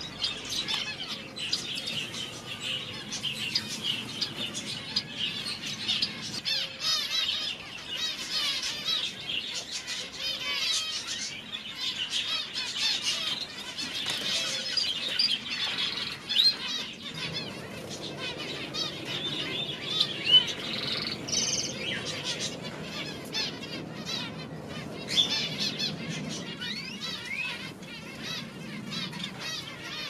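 Many small aviary birds chirping and twittering over one another in quick short calls, with now and then a flutter of wings. A low, steady background noise comes in about halfway.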